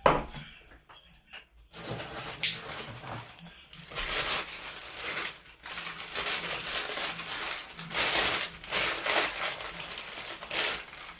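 Packaging crinkling and rustling in irregular bursts as shopping items are handled, after a single sharp knock at the start.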